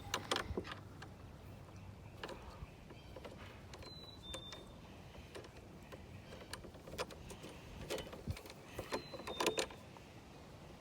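Scattered clicks, knocks and rattles of lawn mower parts being handled and fitted, with a cluster of sharper knocks near the end as the part is worked into place. Two brief high chirps sound about four and nine seconds in.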